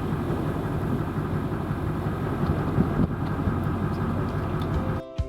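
Steady low rumbling noise that cuts off suddenly near the end, when strummed guitar music begins.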